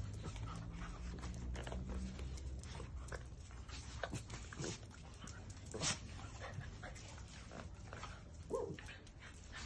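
Small dogs play-fighting, giving a few short yips and growls amid scuffling. The loudest is about six seconds in and another comes near the end.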